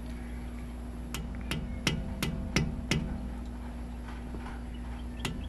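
Rubber mallet tapping a flat-blade screwdriver wedged under a wheel hub's center cap to drive the cap loose: six quick sharp taps about a second in, roughly three a second, then two more near the end.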